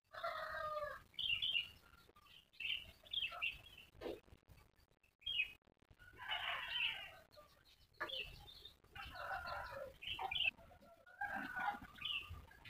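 Chickens clucking and calling, a string of short calls a second or two apart.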